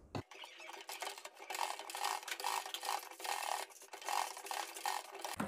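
Domestic sewing machine stitching through fabric, a faint running whir with a light rhythmic clatter of about three pulses a second.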